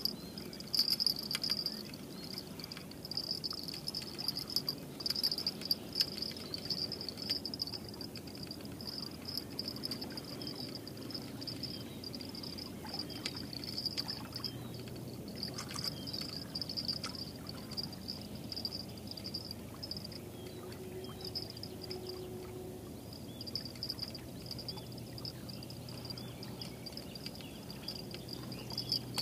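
Insects chirring in a continuous high-pitched trill that breaks off briefly about two-thirds of the way through. A faint low hum comes in about halfway.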